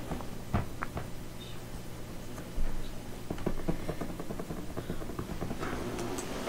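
Quiet meeting-room tone with a steady low electrical hum and scattered small clicks and taps of handling noise, including a quick run of ticks in the middle and a brief knock about two and a half seconds in.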